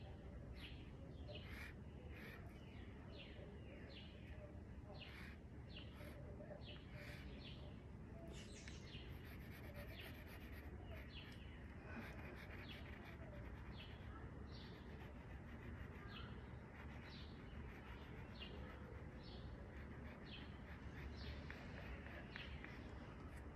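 Faint songbirds chirping: many short, high calls, often falling in pitch, repeating about once or twice a second over a faint steady background hum.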